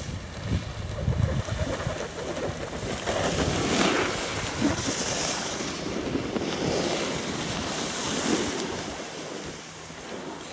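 Skis hissing and scraping over hard-packed groomed snow while the skier films on the move, mixed with wind buffeting the microphone. The scraping swells in surges about five and about eight seconds in.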